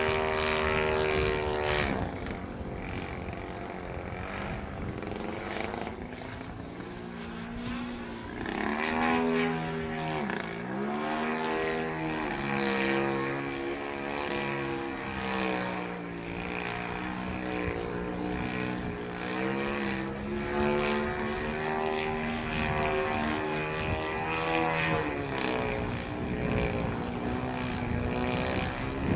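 Radio-controlled Yak model plane's motor and propeller droning in flight, its pitch rising and falling over and over, with a deep drop and climb in pitch about ten seconds in.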